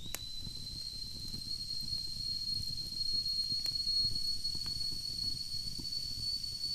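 Kettle whistling steadily on one high note, rising slightly as it starts, over the soft crackle of a log fire with a few sparse pops.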